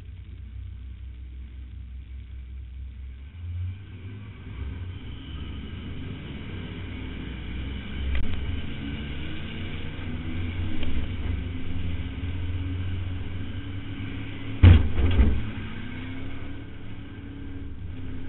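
2004 Ford Crown Victoria's V8 engine running, heard from inside the stripped cabin, getting louder as the car gathers speed in the pack a few seconds in. About fifteen seconds in come two or three loud bangs, the loudest sound here.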